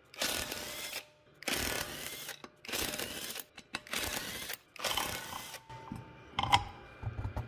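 A power wrench spinning out the five wheel bolts of a car's wheel hub, one at a time, in five short bursts. A single sharp clack follows near the end.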